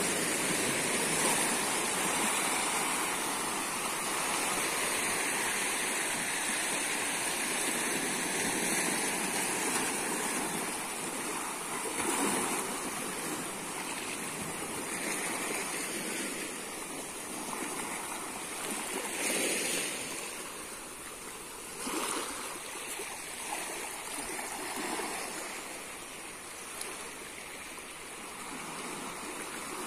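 Small sea waves breaking and washing over a rocky shoreline: a continuous rush of surf that swells in several louder surges.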